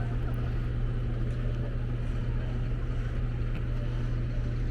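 Steady low engine rumble with a continuous noise of street activity over it.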